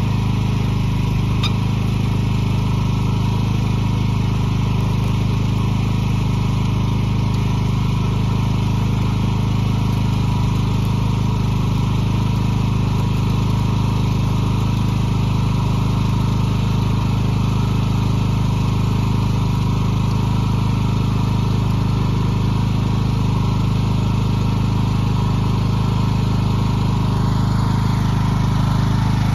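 An engine idling steadily at one even pitch, with no revving.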